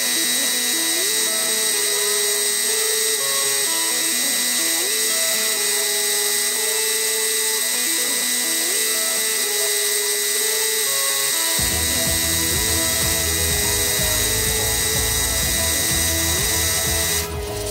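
Compressed-air paint spray gun hissing steadily with a high whistle as it sprays paint onto a bicycle frame; the hiss cuts off near the end. Background music plays under it, with a bass beat joining about two thirds of the way through.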